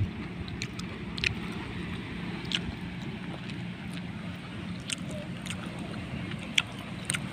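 A steady low motor drone, with a few brief sharp clicks scattered through it.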